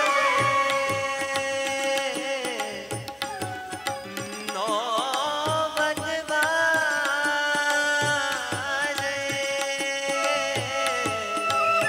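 Live Gujarati devotional song: a male voice sings long, wavering melismatic lines over held keyboard chords, with a steady tabla beat underneath.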